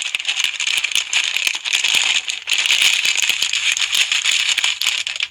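Slime being poked and squeezed, making a dense, continuous run of crackling clicks and pops with a brief lull about halfway through.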